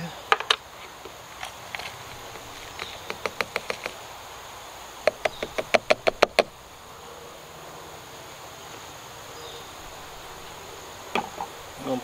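Quick runs of sharp clicks and knocks from plastic jars and lids of Tannerite being handled on a plastic table, over a steady high drone of insects.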